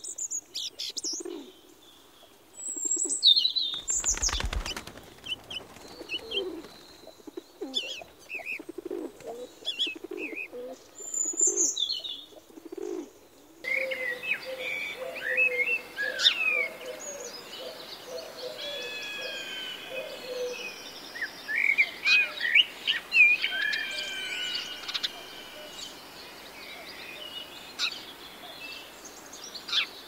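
Pigeon cooing in repeated low calls with scattered higher chirps, and a short burst of wing flapping about four seconds in. About halfway through, the sound cuts to a busy chorus of mixed birds whistling and chirping.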